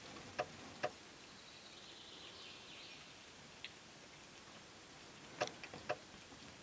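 Quiet woodland ambience with a few sharp clicks: two near the start and three or four close together about five and a half seconds in. A faint bird call sounds a couple of seconds in.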